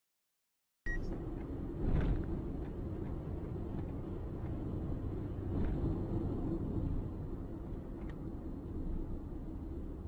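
Steady low rumble of road traffic, with a heavy lorry's engine, starting abruptly about a second in, with a brief louder swell about two seconds in.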